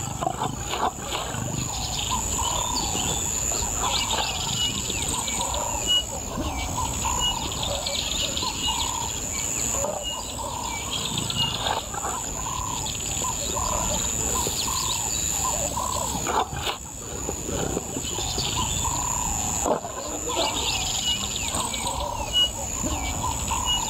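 Male lions growling low while feeding at a kill. Birds chirp repeatedly and a steady high insect drone runs behind.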